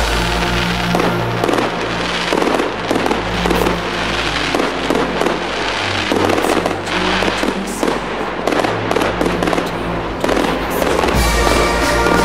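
Aerial fireworks bursting one after another, with many sharp bangs and crackles, over music.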